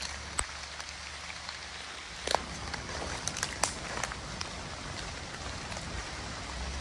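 Steady rain falling, with scattered drops tapping sharply close by.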